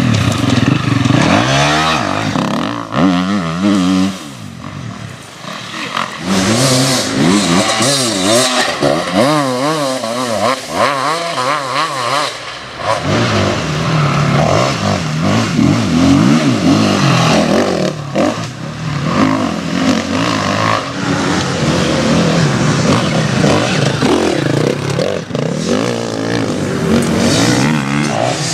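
Enduro motorcycle engines revving hard off-road, the pitch climbing and dropping again and again as the throttle is opened and closed. The sound dips for a couple of seconds about four seconds in, then picks up again.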